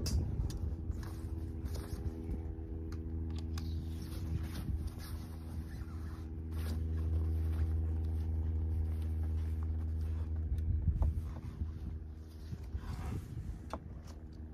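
A steady low engine hum from an idling motor, loudest in the middle and fading near the end, over scattered rustles and clicks of tent canvas and zips being worked as a tent window is opened from inside.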